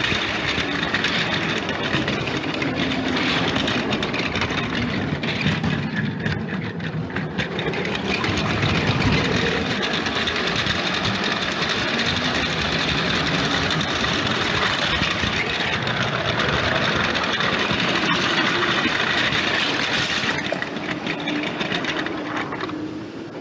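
LEGO train running along its plastic track: a small electric motor whirring, with the wheels clattering steadily. It fades out near the end.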